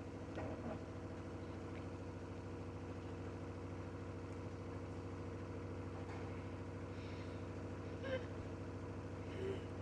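Washing machine running with a steady motor hum, made of several even tones.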